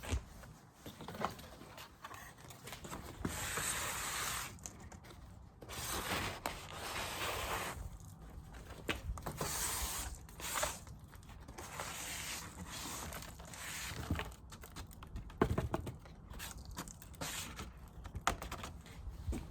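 Intermittent scraping and rustling in bursts of a second or two, with scattered light clicks and knocks, from beehive frames being handled and picked at.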